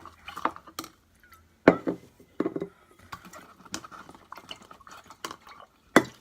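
A utensil stirring and scraping in a container as slime ingredients are mixed, with several sharp knocks and clinks; the loudest come about a second and a half in and near the end.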